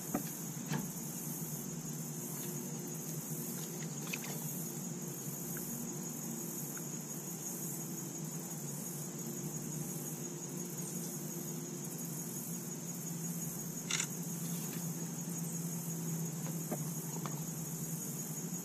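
Insects buzzing steadily in a continuous high-pitched chorus over a low, even hum, with a few light clicks, the sharpest about 14 seconds in.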